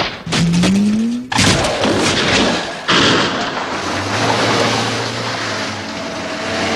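Chase sound effects of off-road vehicles racing over dirt. A sharp crack at the very start is followed by a short rising whine, then a sudden loud thud about a second and a half in. After that comes a dense rumble of engines and tyres on dirt, surging again near the three-second mark.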